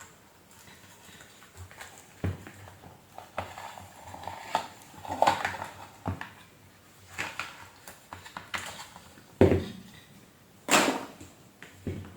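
Hard plastic and metal vacuum cleaner parts being handled during disassembly: irregular clicks, clatters and knocks, with a few louder knocks, the loudest about three-quarters of the way through.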